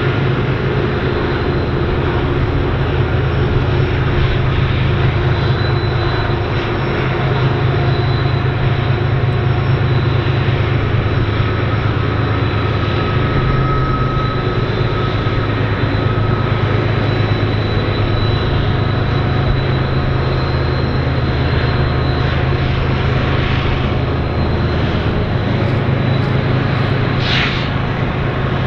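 BNSF diesel-electric freight locomotives working past in a steady, loud low engine drone, with a thin high steady whine above it.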